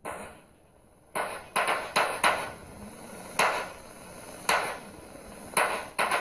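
About ten sharp knocks, loud and close to the microphone, coming at uneven intervals with several in quick runs.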